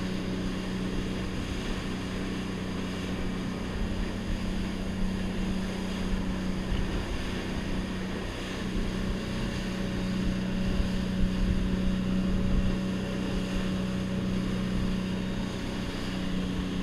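Dive boat's outboard motor running steadily at cruising speed, a constant low drone, over a steady hiss of wind and rushing water.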